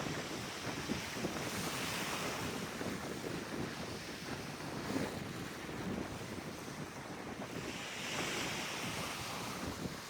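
Wind buffeting the microphone: a steady rushing noise that gusts up twice, about two seconds in and again near the end.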